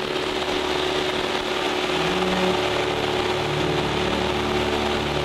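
Cessna 172's piston engine and propeller running in flight, a steady drone heard from inside the cabin.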